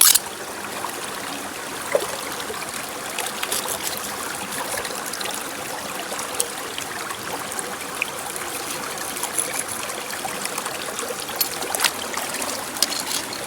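Water running and trickling steadily, with a few faint clicks and knocks.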